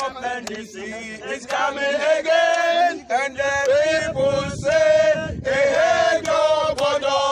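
A group of men chanting a celebratory song together in loud unison, with a few hand claps near the start.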